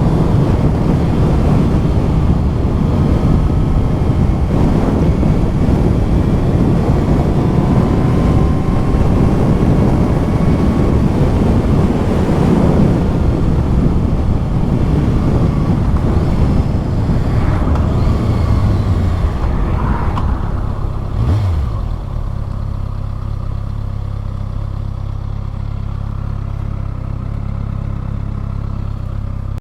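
2020 Kawasaki ZX-6R's inline-four engine on its stock exhaust, under way with heavy wind noise and some rising revs. About 21 seconds in it drops to a quieter, steady low engine note.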